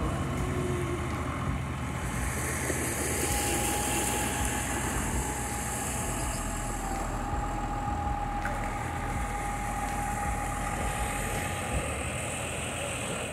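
Large farm tractor's diesel engine running steadily at low revs, under a steady hiss of wind and surf.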